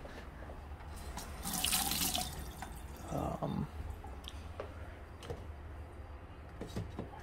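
A short hiss about one and a half seconds in, with a few light clicks and knocks of things being handled, among them a pair of kitchen scissors picked up near the end.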